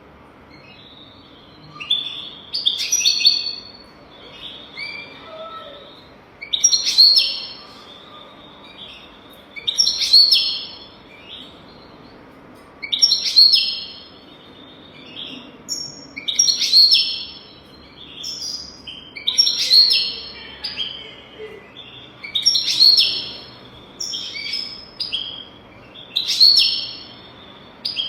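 European goldfinch singing: bright twittering phrases of chirps and trills, a loud phrase about every three seconds with softer twitters in between, as in a tutor song for teaching young goldfinches.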